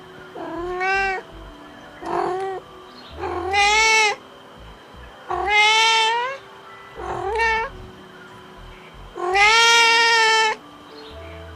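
Domestic cat meowing six times, each call about half a second to a second long with its pitch bending up and then down; the last meow is the longest.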